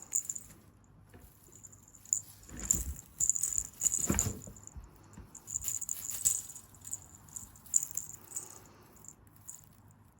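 Light jingling rattle in irregular short bursts, with two dull thumps about two and a half and four seconds in.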